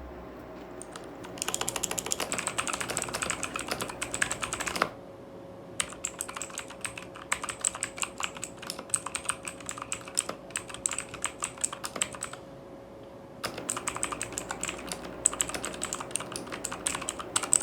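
Fast typing on a Machenike K7 mechanical keyboard with blue switches: dense, very loud and tactile key clicks in three runs, broken by short pauses about five and thirteen seconds in.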